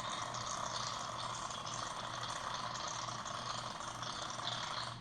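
Aerosol shaving cream can spraying foam in one long, steady hiss that cuts off abruptly at the end.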